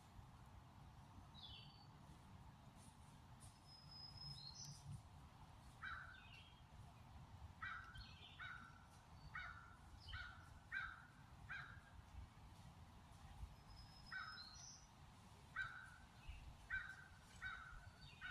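Faint birds calling in woodland: two runs of short, harsh, evenly repeated calls, about eight in the first run and five in the second, with a thin high whistle shortly before each run.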